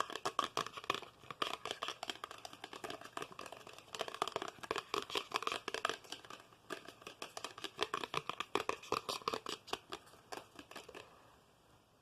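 ASMR tapping and scratching: a fast, dense run of light clicks with a short break about six and a half seconds in, stopping about a second before the end.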